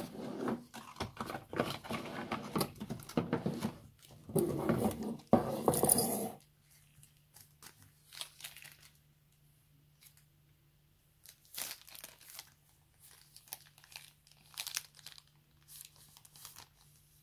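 Plastic packaging being crinkled and torn while unwrapping a new phone: dense, loud crinkling for about six seconds, then only scattered faint rustles and taps over a faint low hum.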